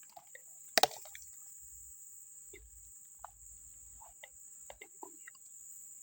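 Quiet rice-paddy ambience: a steady high insect drone with scattered faint clicks and short chirps, and one sharp double knock about a second in.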